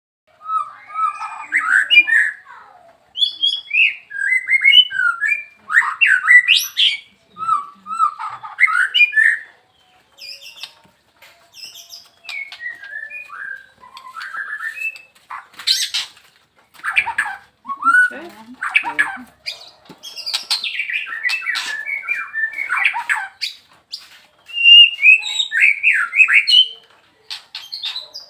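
White-rumped shama (long-tailed murai batu) singing: a run of varied phrases mixing gliding whistles with harsh, chattering notes, each phrase a second or two long with short pauses between.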